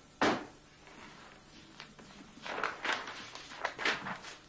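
A sharp thump about a quarter second in, then newspaper pages being flipped and turned by hand, several quick rustles of paper near the end.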